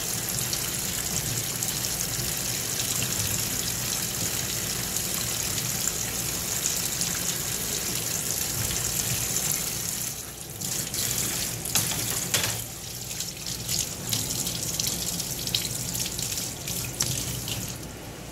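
Faucet spray running steadily into a stainless steel sink. About ten seconds in, the sound drops and breaks up into uneven splashing with a series of sharp knocks as a plastic basket is moved about under the stream.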